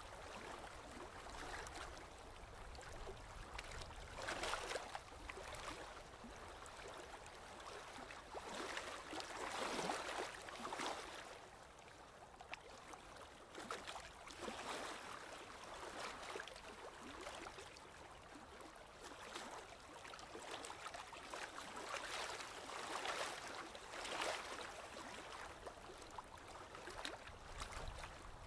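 Sea waves washing in and out, in uneven surges every few seconds.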